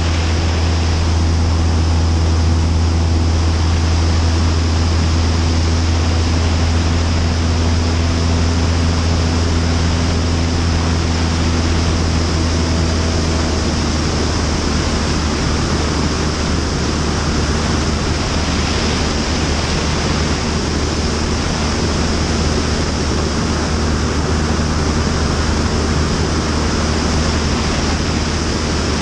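Steady wind rush over an action camera mounted outside under the wing of a Cessna 172 Skyhawk in flight, over the constant low drone of its piston engine and propeller. The engine's tones are clearer in the first half and blur into the wind noise about halfway through.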